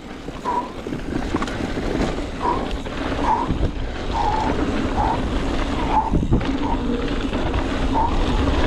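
Mountain bike ridden fast down dirt single track: tyre and trail noise with wind buffeting the body-mounted microphone, and short high chirps every second or so.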